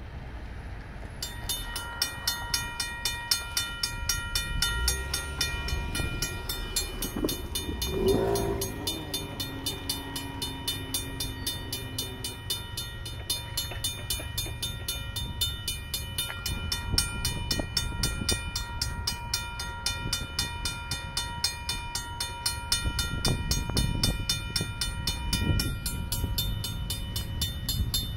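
Railroad crossing bells, among them a Safetran mechanical bell, start ringing about a second in and keep up a rapid, even clang as the crossing activates. About seven seconds in, a train horn sounds for several seconds, falling slightly in pitch, and near the end a low rumble builds as the train draws near.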